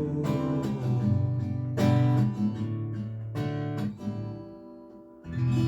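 Acoustic guitar playing a song's closing bars: picked notes and strummed chords that die away, then one last chord struck near the end and left ringing.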